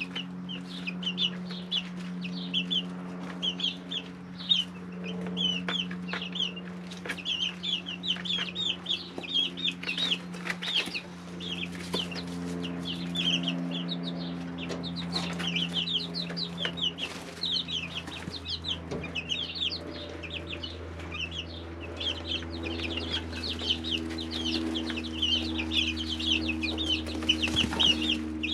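Brood of three-week-old chicks peeping constantly, many short, rapid, high chirps overlapping, with scattered clicks. A steady low hum runs underneath.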